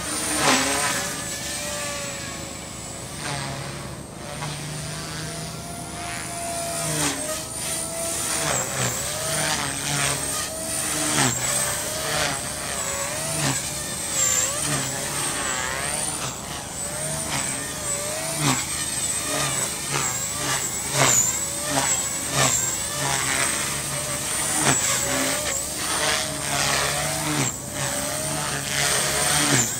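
Align T-Rex 250 electric mini RC helicopter in flight: a high-pitched motor and rotor whine whose pitch dips and recovers again and again.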